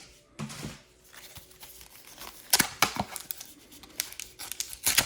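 Foil booster-pack wrappers being handled and torn open: scattered crinkling with a few sharp snaps, the loudest a little past halfway and again near the end.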